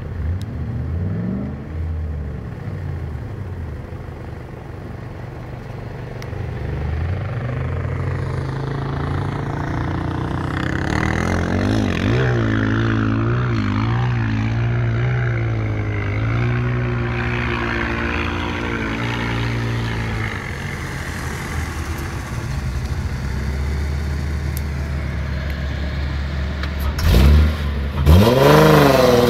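Four-wheel-drive engines revving during dune driving, the pitch climbing and falling with the throttle. Near the end a Nissan Patrol revs hard close by, its engine note swooping up and down several times, the loudest part.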